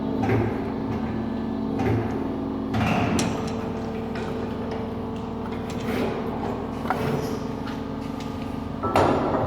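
A machine running with a steady hum, with knocks and clanks at irregular intervals and a louder clatter near the end.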